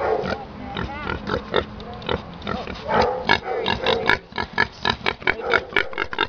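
A young pig grunting, then a rapid run of short crunching clicks in the second half as it chews pellet feed from a tray.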